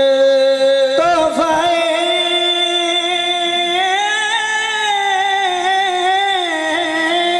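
Qawwali music: harmonium and a male singer holding long, wavering notes without words. A steady note is held for about the first second, then the pitch shifts and the melody slowly rises and falls.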